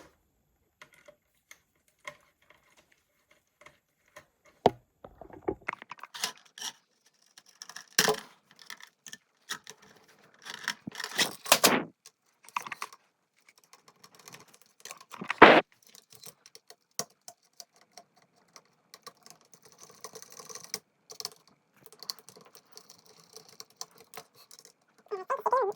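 Scattered clicks, taps and short scrapes of small hard parts being handled on a bare laptop motherboard during disassembly, with one sharper click about halfway through.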